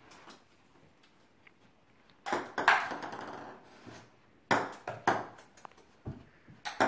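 Table-tennis ball clicking off paddles and the table during a rally. After a quiet start there are sharp clicks: one a little past two seconds in, then a quick run of hits around the middle to the end.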